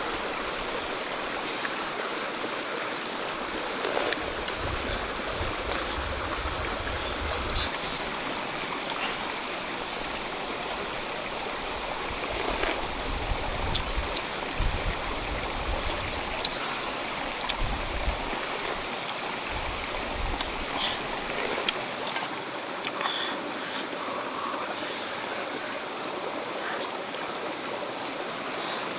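A shallow rocky stream running steadily, with a few faint clicks over it.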